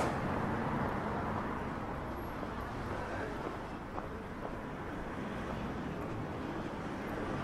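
City street ambience: a steady hum of distant traffic, with a faint tap about four seconds in.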